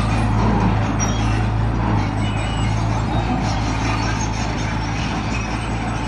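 Diesel engine of a Komatsu D20P crawler bulldozer running steadily, a constant low drone with a noisy mechanical haze over it.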